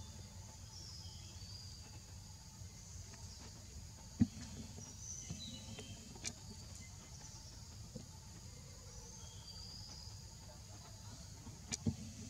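Outdoor ambience: faint high chirping of birds and insects over a low steady rumble, broken by several short knocks, the loudest about four seconds in and two close together near the end.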